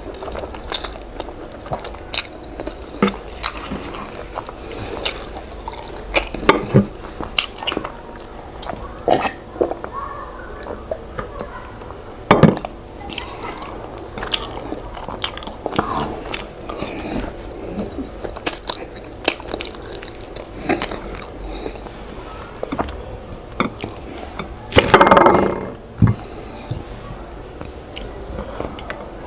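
Close-up eating sounds of a person chewing yam with owo stew: irregular chewing clicks and mouth smacks. Near the end there is one louder sound about a second long.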